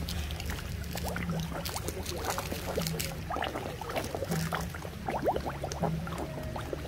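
Koi crowding at the surface of a pond, splashing and gulping: a dense, irregular patter of small plops and slurps, over a low steady hum.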